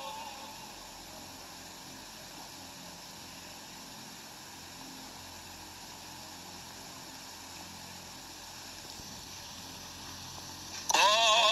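Steady faint hiss of background noise during a pause in Quran recitation. Near the end, a man's chanted recitation comes back in suddenly and loudly with a long, wavering melodic phrase.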